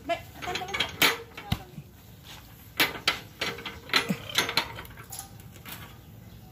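Irregular sharp clicks and light metallic clanks, about ten spread over several seconds.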